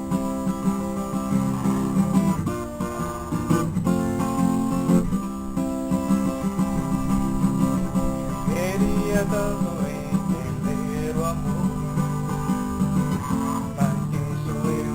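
Acoustic guitar being strummed, chords played in a steady rhythm.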